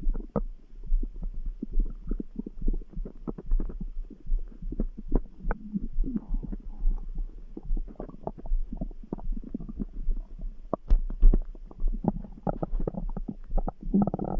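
Stomach grumbling: irregular gurgles and small pops of gas and fluid moving through the gut, with one sharper pop about eleven seconds in. A low heartbeat thuds underneath.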